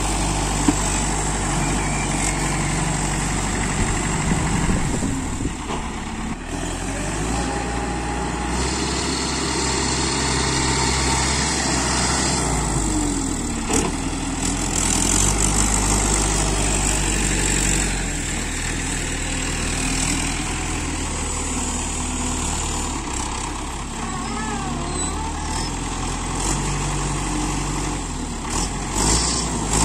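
Diesel tractor engines running: the Mahindra Arjun 605 DI loader tractor's engine speeds up and slows down several times as it scoops and lifts soil with the front loader, while a second tractor's engine idles alongside.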